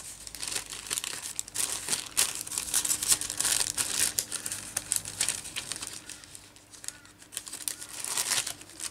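Plastic laminating pouch crinkling and rustling as it is handled and lined up by hand, with an irregular run of crackles that eases off for a moment and picks up again near the end.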